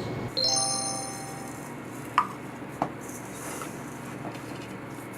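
A clink on a metal or glass kitchen vessel that rings out for about a second, followed by two short, light knocks about half a second apart.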